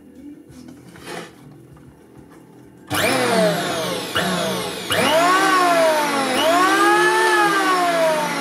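Sturm P1015 1.5 kW electric planer switched on about three seconds in and run unloaded in short bursts: its motor and cutter drum whine up to speed, coast down and are switched on again three more times, the pitch rising with each start and falling as it slows.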